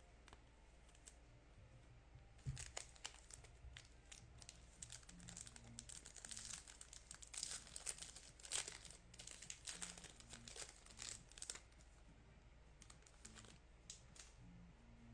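Crinkling and tearing of a trading card pack's wrapper being opened by hand: a sharp rip about two and a half seconds in, then a long stretch of crackling, easing off into a few small clicks near the end.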